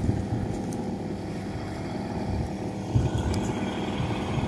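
Rice combine harvester's diesel engine running steadily at a constant speed, with one low thump about three seconds in.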